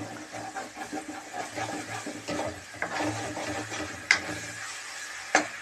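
Metal spatula stirring and scraping onion-ginger-garlic paste around a metal kadhai as it fries in oil, with a soft sizzle and about four sharper scrapes of the spatula against the pan. The masala is being browned until the oil separates.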